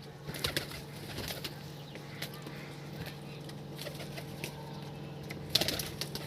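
Domestic pigeons' wings flapping in short bursts, the loudest about five and a half seconds in, over a steady low hum.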